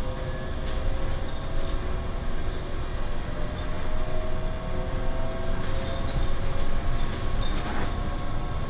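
Cabin of a Scania electric bus under way: a steady low rumble of road and tyre noise, with a thin high whine from the electric drive that rises slowly in pitch as the bus picks up speed. A few light rattles from the body.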